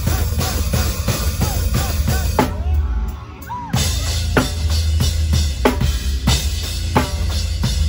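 Heavy metal drum kit played live and miked close at the kit: fast bass drum under snare and cymbals, with the band's music beneath. About two and a half seconds in the drumming stops for about a second, then comes back with heavy accented hits a little over half a second apart.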